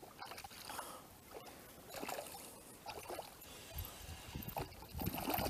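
Water splashing as a small hooked pike thrashes at the surface while it is reeled in, in irregular bursts with a few low thuds near the end.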